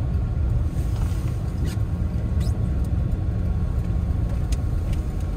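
Inside the cabin of a Chevrolet Tahoe driving on a snowy road: a steady low rumble of tyres and engine, with a few faint ticks.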